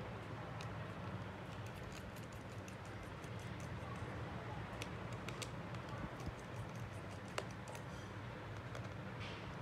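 Scattered small clicks and taps of tools and small parts being handled during a phone charging-port repair, over a steady low hum.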